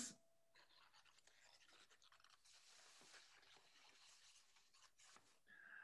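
Near silence: faint room tone with a couple of tiny soft clicks.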